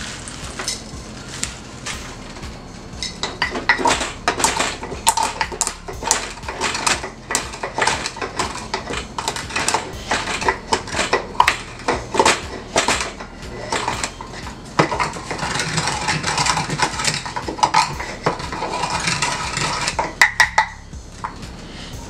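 Wooden pestle pounding pimento (allspice) in a wooden mortar: a long run of quick, sharp knocks, then a steadier grinding rasp, ending with a few sharper clicks.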